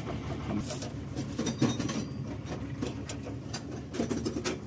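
Metal clicks and clinks of a spanner on a nut in a combine harvester's clutch linkage, as a broken clutch nut is being changed. A steady low engine drone runs underneath.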